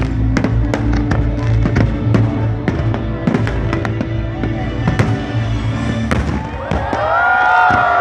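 Fireworks popping and crackling in a rapid, irregular string of bangs over music with a steady bass. Near the end, a cluster of long tones rises and falls.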